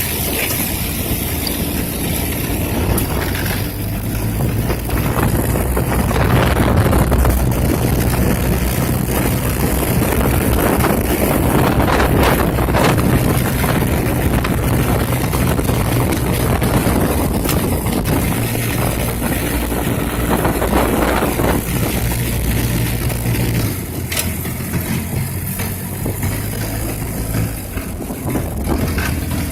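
ATV (quad bike) engine running steadily under a rushing noise. It grows louder for much of the middle and eases off a little near the end.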